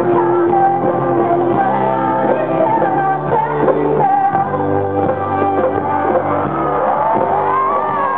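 Live rock band playing, with electric guitars and a woman singing lead.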